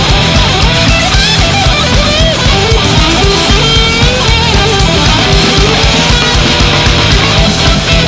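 Heavy rock band playing an instrumental passage: an electric guitar lead line with pitch bends over driving drums and bass.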